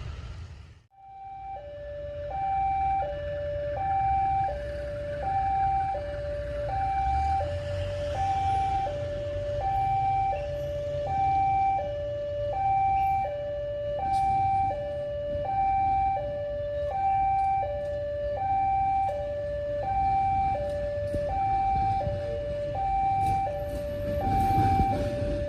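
Railway level-crossing warning alarm: two electronic tones alternating high and low, a bit under a second per pair, starting about a second and a half in, over a low rumble.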